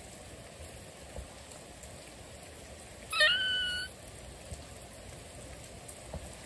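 Steady rain falling, and about three seconds in one call lasting under a second, which the scene points to a gray squirrel giving: a few quick stuttering notes that rise into a held, steady tone.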